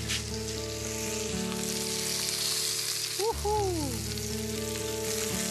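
Halloumi cheese slices sizzling steadily in hot olive oil in a frying pan as they brown, with background music playing held notes underneath.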